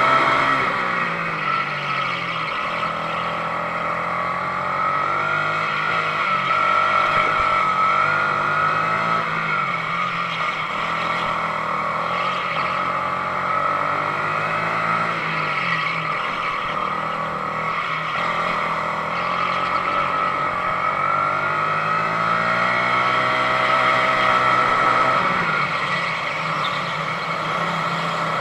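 Sodi RX250 rental go-kart engine at full race pace, heard from on board; its pitch falls and climbs again several times as the kart slows and accelerates again.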